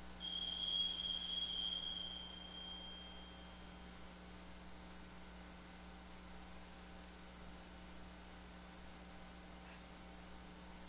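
A small altar bell struck once at the elevation of the chalice, ringing with a clear high tone that fades over about two seconds. A faint steady electrical hum follows.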